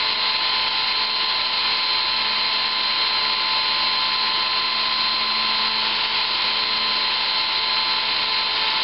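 Brushless electric motor of a ParkZone Super Decathlon R/C plane running steadily on the bench at about cruise throttle, spinning a Master Airscrew 8x6 three-blade propeller: a steady whine over the rush of the prop. It is under a light load of about 21 watts, just under 3 amps, well within what the motor can take.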